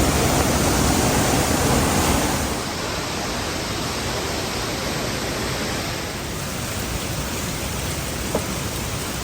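Steady rushing of water, an even hiss with no rhythm, a little louder for the first two and a half seconds.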